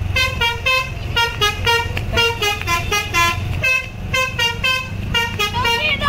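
Tour bus's basuri telolet horn playing a quick tune: a rapid run of short pitched horn notes, about three to four a second, stepping up and down in pitch. The bus's engine runs underneath as a steady low rumble.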